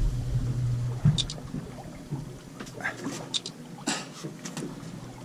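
Sea water lapping and trickling against a small boat's hull, with scattered small clicks and knocks. A low steady hum stops about a second in.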